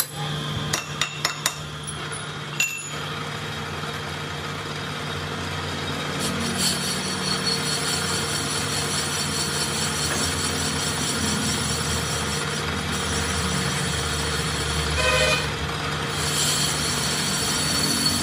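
A metal lathe turns a Fiat tractor brake drum while the cutting tool resurfaces it. There are a few sharp clicks in the first three seconds, then a steady running hum, with a high scraping hiss from the cut starting about six seconds in. A brief higher tone comes about fifteen seconds in.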